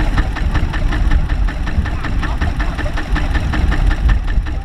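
Single-cylinder diesel engine of a two-wheel walking tractor idling, a steady chug of about seven or eight beats a second.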